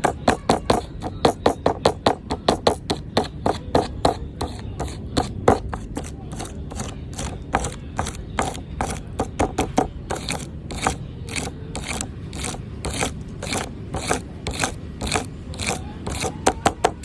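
Homemade fidget board being fiddled with: quick, irregular clicking and clacking, several clicks a second.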